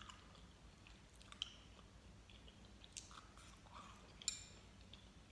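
Faint mouth sounds of someone chewing a gummy candy: a few soft, wet clicks spread through, the clearest about four seconds in.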